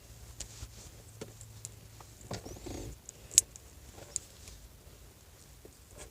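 Small plastic clicks and handling sounds from a homemade plastic switchblade being fiddled with and fitted together, with a short rustle a little over two seconds in and one sharp, loud click about a second later.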